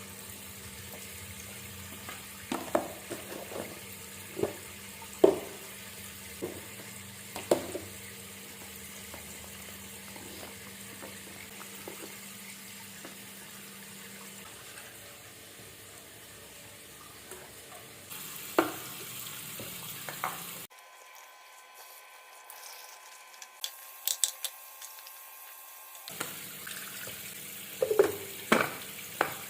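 Home kitchen cooking sounds in several short cuts: a steady hiss of running water or frying, with utensils clinking and knocking against pans and dishes.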